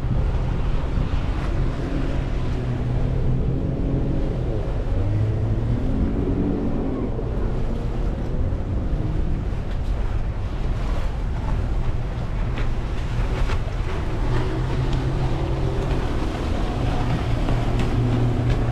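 Boat engine droning steadily while under way, with water splashing past the hull and wind buffeting the microphone.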